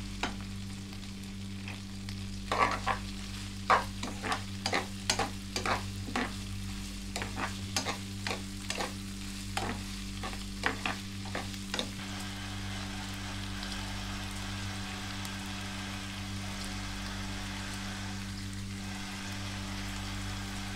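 Spatula scraping and knocking against a granite-coated nonstick frying pan as chopped pork sisig and bell pepper are stirred, a quick run of clicks for the first half or so. After that the stirring stops and the food sizzles steadily in the pan over a steady low hum.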